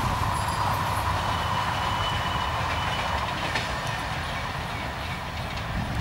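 Express passenger train's coaches and wheels running on the rails as the train moves away, its rumble slowly fading.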